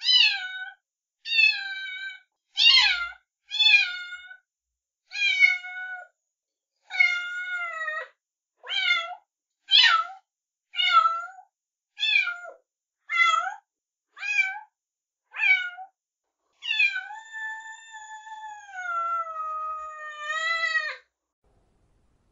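Kitten meowing over and over, short high meows about one a second, then one long drawn-out meow of about four seconds near the end.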